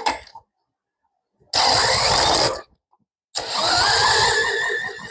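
Small single-cylinder generator engine (WEN 3500, 7 hp) being spun over by a drill on its crank nut in two loud bursts, about a second each, with starting fluid in the carburetor. On the second try it fires and runs briefly with a rising pitch, then fades, showing the engine will run on starting fluid and is not getting fuel.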